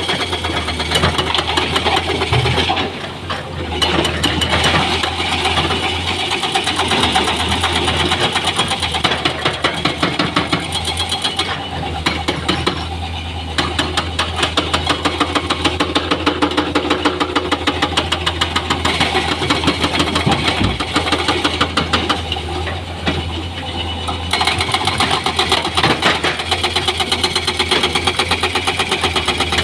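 Diesel engine of heavy construction machinery running, with a steady rapid chugging pulse that grows more pronounced in the second half.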